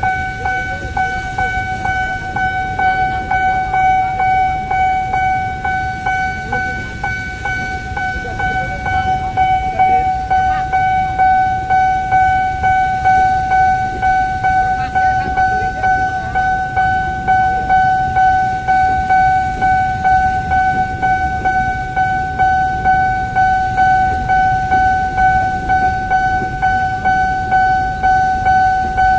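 Level-crossing warning alarm sounding one steady high tone while a container freight train rolls past with a low rumble and a regular beat of about one clack a second, which grows louder about ten seconds in.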